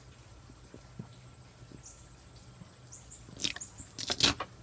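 Duct tape being pulled off the roll and torn: a quick run of loud, crackly rips near the end, after a few seconds of faint handling ticks.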